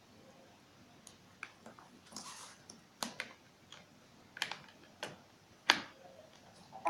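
Handling clicks as a USB cable's plug is fiddled with and pushed into a laptop's USB port: about seven sharp plastic clicks and taps at uneven intervals, the loudest about six seconds in, with a brief rustle of the cable about two seconds in.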